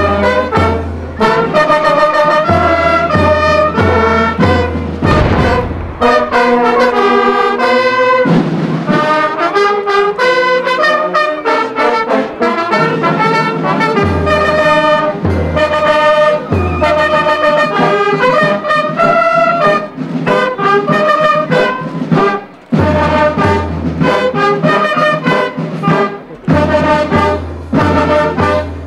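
Military brass band playing a national anthem: trumpets and trombones carry the melody over a recurring low bass beat.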